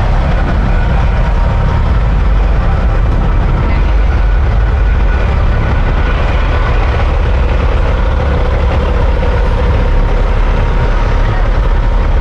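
A heavy truck engine idling with a steady low rumble.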